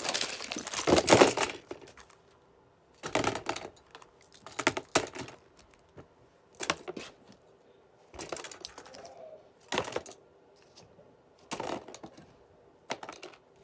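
A pile of fidget toys being handled and set down: short bursts of clicking and clattering every second or two, the loudest in the first two seconds.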